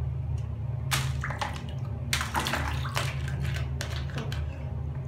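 Water splashing and sloshing in a plastic basin as plastic toy animals are swished through it and lifted out by hand, in several short bursts. A steady low hum runs underneath.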